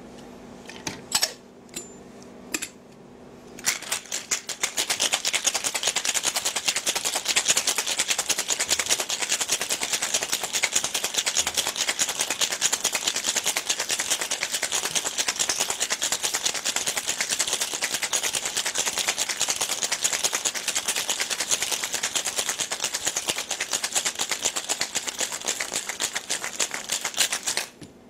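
A few separate clinks, then ice rattling hard and fast inside a stainless steel cobbler cocktail shaker for over twenty seconds as it is shaken in the Japanese 'hard shake'; the rattle stops abruptly near the end.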